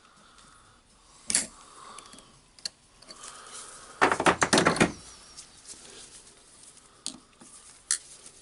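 Pliers and small steel parts clicking and clinking as a spring ring is worked off a rotary hammer's tool holder: a few single clicks, with a quick burst of clinking about four seconds in.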